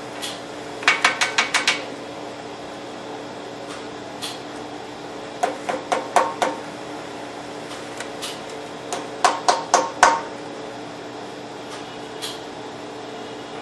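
Rapid hard knocks in three quick bursts of five or six, with a few single taps between, from a laser printer's toner cartridge being banged after a toner-low stop. A steady machine hum runs underneath.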